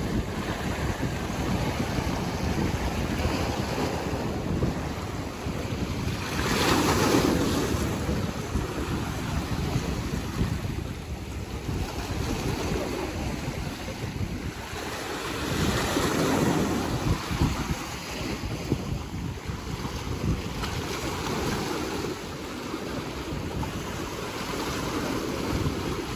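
Ocean surf washing on the shore, a steady rush that swells twice into louder breaking waves, about nine seconds apart, with wind buffeting the microphone.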